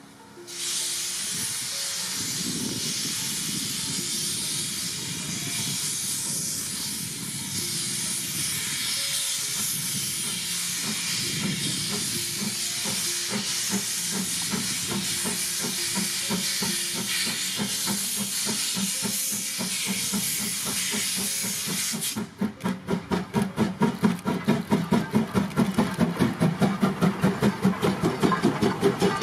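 JNR Class C11 2-6-4T tank locomotive No. C11 325 hissing steadily and loudly as steam vents around its wheels while it pulls out of the station. About 22 seconds in, the hiss stops suddenly and a fast, regular beat of the locomotive's exhaust and wheels takes over as it passes close by.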